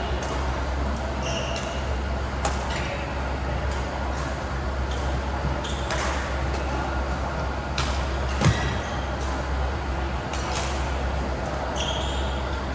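Badminton rally: sharp racket strikes on the shuttlecock about once a second over a steady low hum, with a louder thud about eight seconds in.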